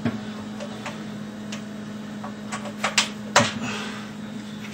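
Sharp clanks and knocks of a CO2 cylinder being shifted into place against kegs and gas hoses, about half a dozen, the loudest two just after three seconds in. A steady low hum runs underneath.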